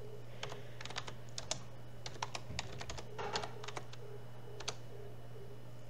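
Computer keyboard being typed on: a string of irregular key clicks as a short terminal command is entered, over a steady low hum.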